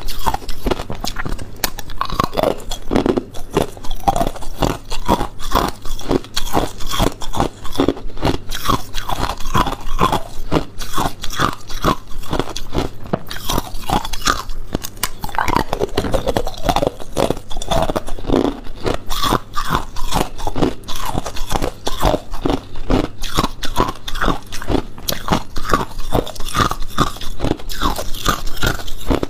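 Ice being bitten and chewed close to the microphone: a continuous run of sharp, rapid crunches as the ice cracks between the teeth.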